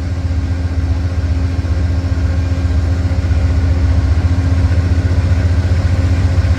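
Amtrak P42 Genesis diesel locomotive's GE V16 engine running with a steady low rumble and hum, growing gradually louder as the train gets ready to depart.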